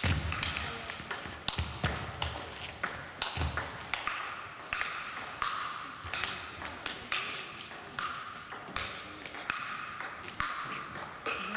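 Table tennis ball clicking sharply and repeatedly off bats, table and floor, each click echoing in a large sports hall.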